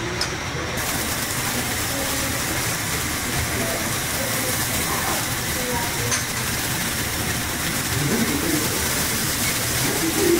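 Thin slices of marbled beef sizzling on a wire-mesh yakiniku grill over an open fire: a steady hiss that sets in fully about a second in.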